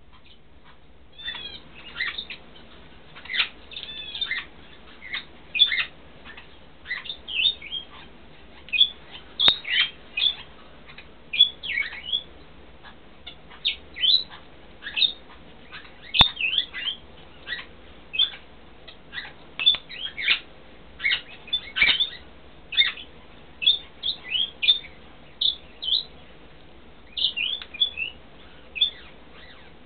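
Vosmaer's eclectus parrots chirping: a run of short, high calls, many falling in pitch, about one or two a second. A single sharp click about halfway through.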